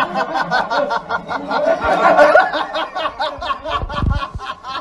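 People laughing hard, a rapid run of breathy, chopped laughs. A low thump about four seconds in.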